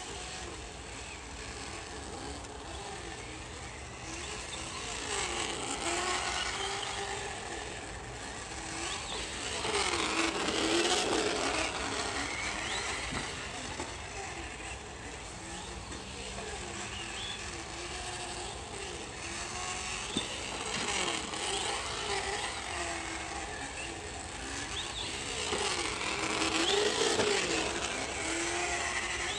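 Traxxas Slash 4x4 VXL's onboard sound speakers playing a recorded V8 truck engine, its pitch rising and falling as the RC truck is throttled around the track. The sound swells louder twice, about ten seconds in and near the end.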